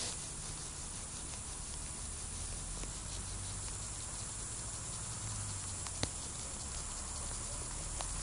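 Quiet handling of a small winter ice-fishing rod as it is jigged by hand: faint, quick ticking and light rustle, with one sharp click about six seconds in, over a low steady rumble.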